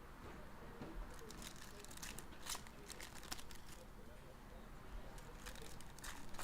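Faint crinkling and scattered soft clicks as trading card packs are opened and cards are handled.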